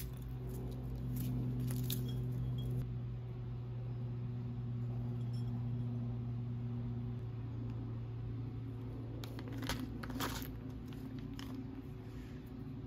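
Small plastic variator sliders and metal CVT parts clicking together as they are handled: a few light clicks about two seconds in and a cluster of clicks near the ten-second mark, over a steady low hum.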